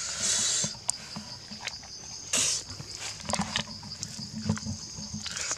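A person biting into and chewing a roasted duck leg, with short noisy mouth sounds and clicks, over a steady high insect drone.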